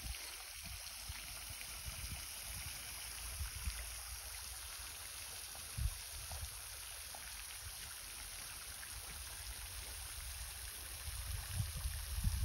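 Steady rushing splash of a pond fountain aerator's spray falling back onto the water, with a few brief low thumps about six seconds in and again near the end.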